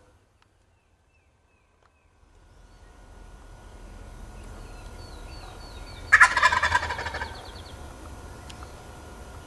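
Wild turkey gobbler gobbling once: a loud, rapid, rattling call about six seconds in, lasting about a second. Before it there are about two seconds of near silence.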